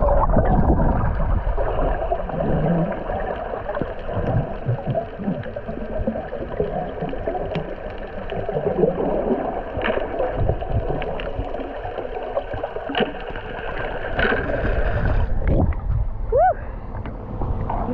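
Muffled rushing and gurgling of water and bubbles picked up by a submerged action camera during a snorkelling dive. About 15 seconds in, the sound changes to surface water sloshing.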